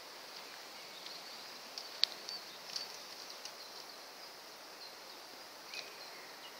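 Quiet woodland ambience over a steady hiss, with scattered short high bird chirps. A sharp click comes about two seconds in, and a brief falling call near the end.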